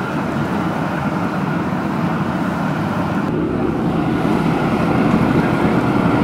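Propane-fired chile roaster running: the gas burners make a steady rushing noise under the rotating wire-mesh drum of green chiles, a little louder in the last seconds.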